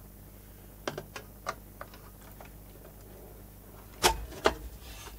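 Metal screening can being worked loose on a video recorder's chassis: a few light clicks, then two louder knocks about four seconds in.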